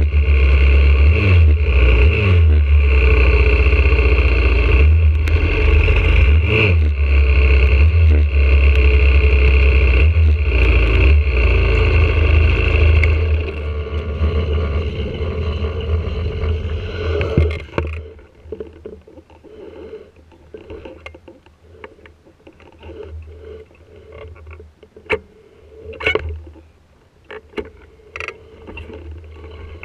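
YCF 125cc four-stroke single-cylinder pit bike engine running at low road speed, heard from on the bike. About halfway through it drops back to idle and is then switched off, leaving scattered clicks, knocks and rustling close to the microphone.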